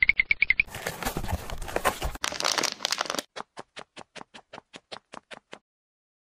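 Plastic packing wrap crinkling and rustling for about two and a half seconds, after a short rapid run of pulses at the start. Then a train of sharp, evenly spaced clicks, about six a second, that stops a little before the end.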